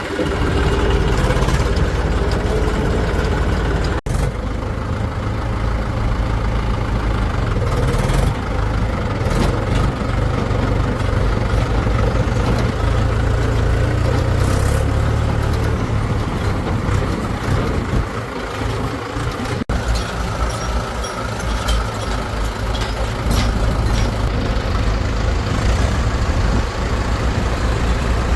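Heavy diesel engine running with a deep, steady rumble, as of a tractor or backhoe loader working. The sound breaks off sharply twice, about 4 seconds and 20 seconds in.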